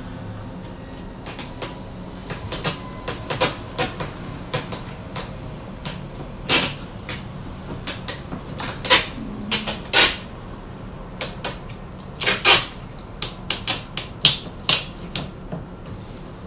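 Packing tape being pulled and pressed onto a cardboard box: an irregular run of clicks, taps and short crackles, with a few louder crackles among them.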